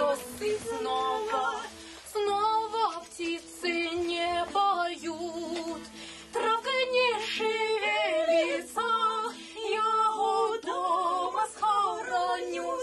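A woman singing a slow song in long held phrases, with guitar accompaniment beneath her voice.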